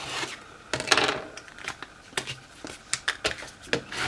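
Plastic scraper tool rubbed back and forth over transfer tape laid on vinyl, burnishing the tape onto the stencil: irregular short scratchy strokes and clicks, with a longer rasping stroke about a second in.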